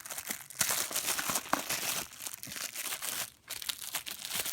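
Packaging being wrestled open by hand, with dense crinkling and some tearing and a short pause about three seconds in.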